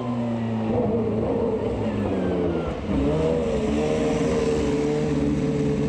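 The 3.5-litre V8 of an AGS X2 two-seater Formula One car running at moderate revs. Its note sags in the first seconds, then settles on a higher, steady note about three seconds in.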